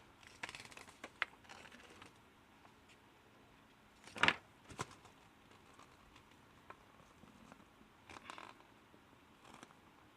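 Plastic handheld puzzle game being handled: scattered faint clicks and short rustles, with one sharper click about four seconds in.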